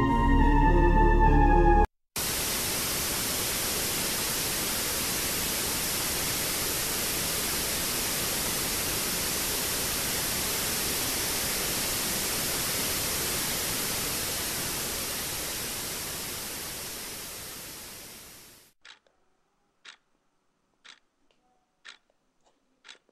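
Music stops about two seconds in and gives way to a steady static hiss like white noise, which fades away over the last few seconds. Faint ticks about once a second, like a clock, follow the hiss near the end.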